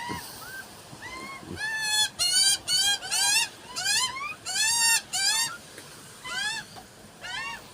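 A bird calling in quick bursts of short, rising-and-falling notes, repeated again and again.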